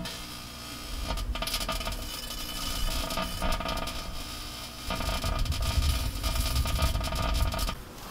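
Microwave oven running with a steady hum, with scattered clicks and clinking over it. It drops away shortly before the end.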